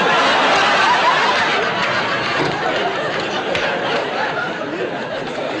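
Studio audience laughing, loudest at the start and slowly dying down.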